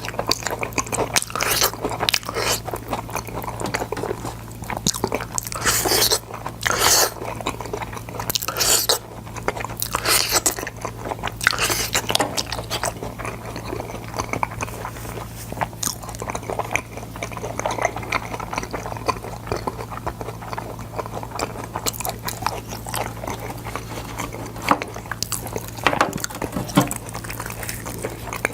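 Close-miked biting, crunching and chewing of boiled sword beans, crisp bites coming every second or so, thicker in the first half and sparser later. A steady low hum runs underneath.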